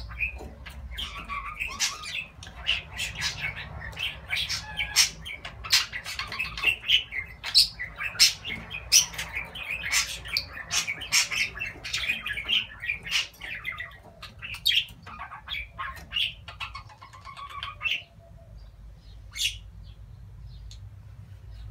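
Budgerigar warbling and chattering: a fast, unbroken run of chirps, clicks and short squawks that stops about eighteen seconds in, followed by a couple of single chirps.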